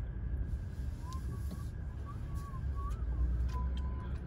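Low rumble inside a car's cabin as it drives slowly, with a few light clicks. From about a second in to near the end, a faint, thin, wavering tone comes and goes in short pieces.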